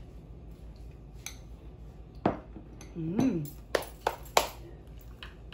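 Someone eating from a bowl with a spoon: a few sharp clicks of spoon and bowl, and a short hummed sound of approval about three seconds in. Three quick clicks follow close together around four seconds in.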